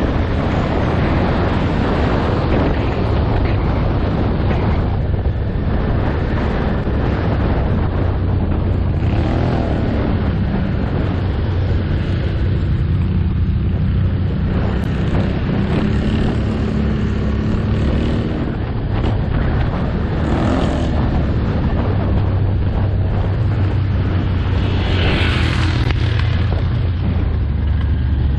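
Can-Am Outlander ATV engine running under way, heard from an onboard camera with wind noise on the microphone. Its pitch rises and falls a few times with the throttle.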